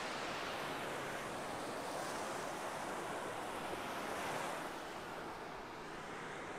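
Small sea waves breaking and washing up a sandy beach, a steady surf wash that swells about four seconds in and then eases.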